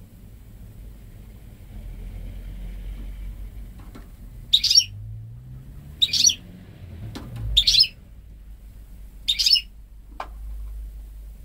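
Goldfinch × canary hybrid (mule) giving four short, bright chirps about a second and a half apart, in goldfinch-style notes. A few light clicks come as it hops about its cage, over a low steady hum.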